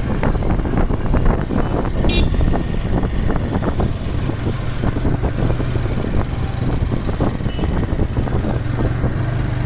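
Motorcycle under way on a road: its engine running steadily with road noise and wind buffeting the microphone. A brief high, rapid chirping sound comes about two seconds in.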